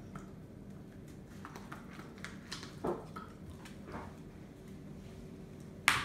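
A puppy's claws clicking and tapping on a hard floor as it walks about, in scattered light taps, with one sharp, loud click near the end.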